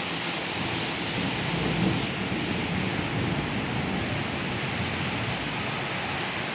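Steady rain falling on stone steps and paving, an even hiss of drops. A low rumble swells under it about two seconds in and fades.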